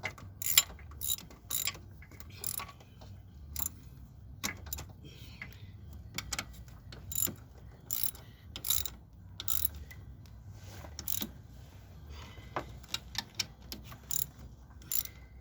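Hand ratchet wrench clicking in short, uneven strokes while tightening down the throttle body bolts and nut.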